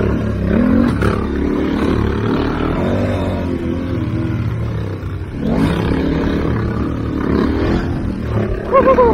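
Two dual-sport motorcycle engines running on a dirt trail, their pitch rising and falling as the riders work the throttle. There is a sharper rev near the end, and steady wind noise on the helmet microphone underneath.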